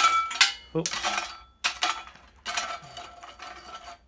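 Lumps of coke being stirred and scraped around inside a steel brake-drum forge: several clinking, scraping strokes with a metallic ring. The dying coke fire is being spread out to cool and go out.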